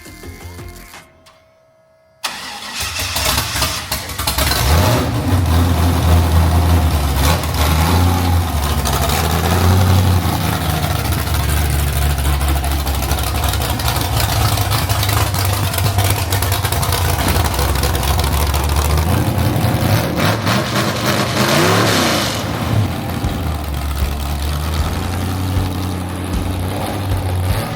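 Demolition derby Chevy Caprice's engine coming in loud about two seconds in and running, revved up and back down a couple of times.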